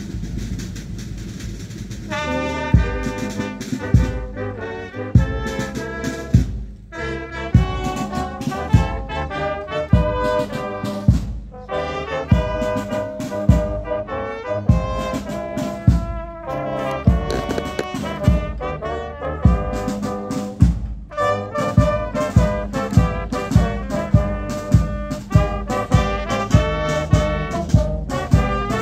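Brass band of trumpets, trombones and tubas, with snare and bass drums, playing a tune over a steady drum beat. The band comes in loud about two seconds in, after a quieter start.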